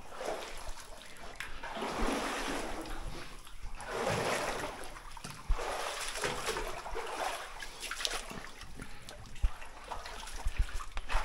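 Water trickling and splashing in a flooded mine chamber, coming in swells a couple of seconds long, with a few sharp knocks.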